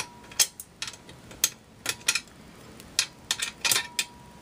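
Hex key clicking against a screw head and the ice shaver's metal frame as the screw is worked loose: irregular sharp metallic clicks.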